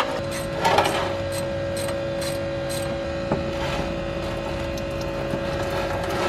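Hand-tool work under a car: a rustling scrape about a second in and a single sharp click a little past the middle, as a drain fitting is worked with a ratchet, over a steady hum.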